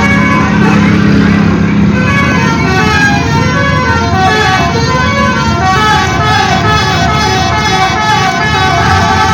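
Basuri multi-tone musical horn on a bus playing a telolet melody: several horn notes sound together and step up and down in quick succession, loud and unbroken, with a low rumble underneath.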